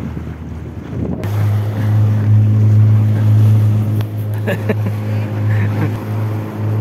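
A small boat's motor running at a steady pitch, a low even hum that becomes loud and steady about a second in, with wind on the microphone.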